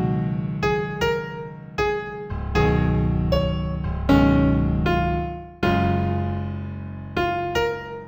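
Solo piano playing a slow New Age piece in F major: single melody notes struck one after another over low held chords, each note ringing and fading before the next.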